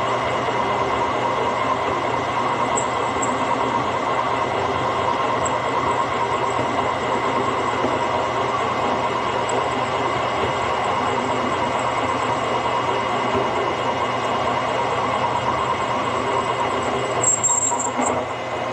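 A boring head in a machine spindle makes a steady cut, boring out a worn pin hole in the steel plate of a backhoe link. It gives a constant metallic grinding hum with a whine in it, and a brief high squeal about seventeen seconds in.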